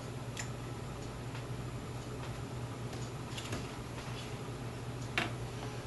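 Small metal clicks of side cutters working the pins of a USB connector on a circuit board: a handful of faint, irregularly spaced ticks, the loudest about five seconds in, over a steady low hum.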